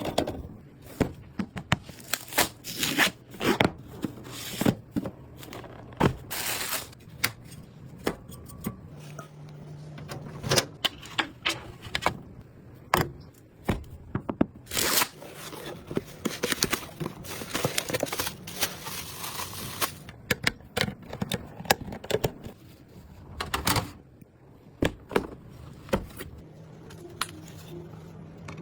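Computer parts being handled and fitted during a PC build: irregular plastic and metal clicks and knocks with short packaging rustles, and a brief steady low hum about nine seconds in and again near the end.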